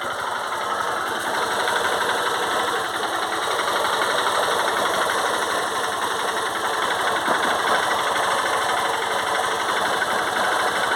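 Honda CG Titan 150's carbureted single-cylinder four-stroke engine idling with a rapid, steady knocking in its running, which the owner suspects is the cam chain.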